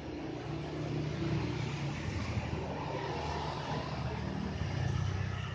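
Street traffic: vehicle engines running as they pass along the road, growing a little louder about a second in and again near the end.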